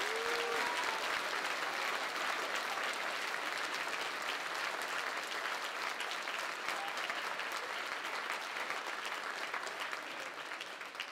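Audience applauding: dense clapping that thins out and fades near the end.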